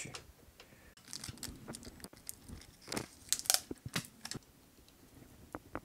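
Bicycle shift cable and its housing being handled and fed through the frame: irregular scratchy rustles and small clicks, coming in two clusters, the loudest about three and a half seconds in.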